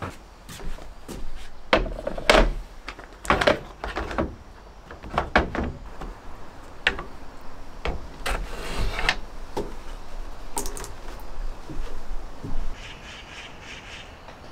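Irregular knocks and clacks of hard plastic parts being handled and set down, with a short scratchy noise about eight seconds in.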